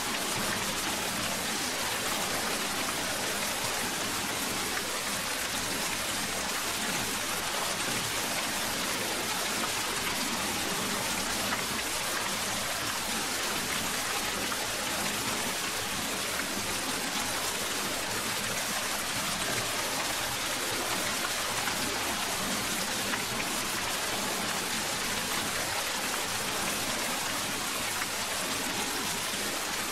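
Rain falling steadily, an even hiss of drops.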